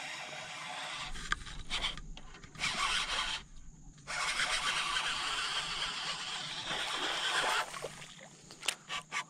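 Baitcasting reel being cranked to retrieve a buzzbait, giving a steady rough whirr that stops briefly twice and then runs again. It ends a little before a few sharp clicks near the end.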